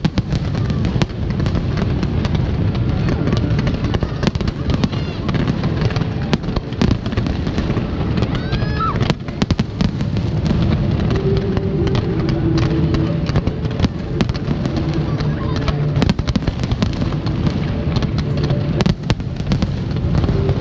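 Fireworks display: aerial shells bursting in rapid succession, a dense, unbroken barrage of bangs and crackles.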